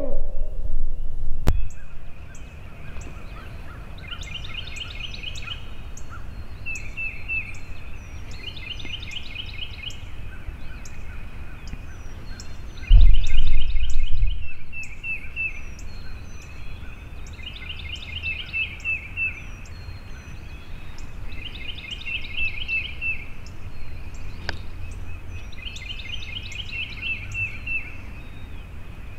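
An owl's hoot trails off in the first second, followed by a low thump. Then short trilled animal calls repeat in bursts every few seconds, with a loud low rumble about 13 seconds in.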